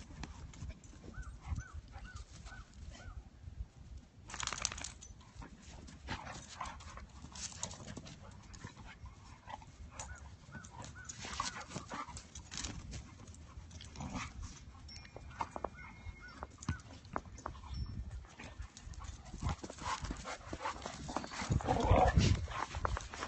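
Two dogs playing rough in snow: scattered scuffles and footfalls, with a louder, close rustle near the end as a dog comes right up to the phone.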